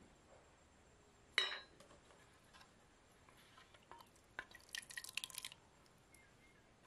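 Faint kitchen utensil sounds: one sharp clink of a utensil against a dish with a short ring about a second and a half in, then a quick run of small taps and clicks around five seconds in.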